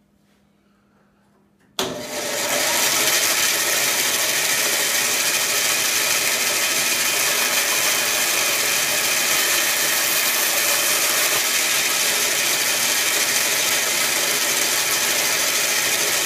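Bandsaw running and cutting a small block of wood. It is a loud, steady noise that starts abruptly about two seconds in.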